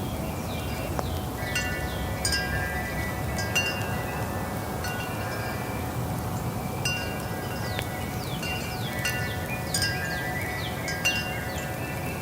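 Metal wind chimes stirred by a breeze, struck irregularly in clusters so that several ringing tones overlap and die away. Under them a steady low rush of wind.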